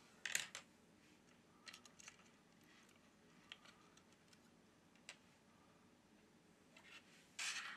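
Near silence: room tone with a few faint clicks, and a faint short hiss near the end.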